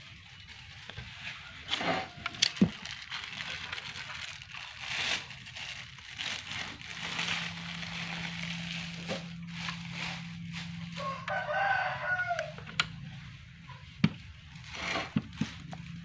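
A single drawn-out animal call, about a second and a half long, some three-quarters of the way through. Around it are scuffs and a few sharp knocks, and from about halfway a steady low hum.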